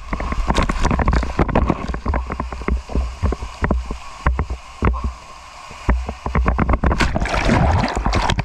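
Water rushing and a body sliding down an enclosed water slide, a steady rumble with many knocks and bumps against the slide walls, ending in a splash into the pool about seven seconds in.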